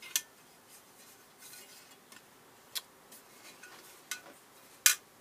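Metal camping-stove parts being handled, giving a few sharp, separate clinks and clicks with faint rustling between, the loudest near the end.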